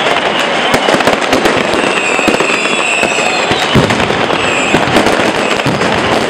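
Fireworks: a dense, unbroken barrage of bangs and crackles from rockets and firecrackers, with several high whistles threaded through it.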